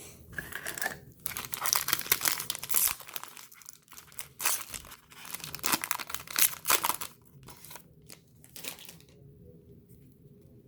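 Plastic foil wrapper of a trading card pack being torn open and crinkled, in two long spells of crackling with a few shorter crinkles after.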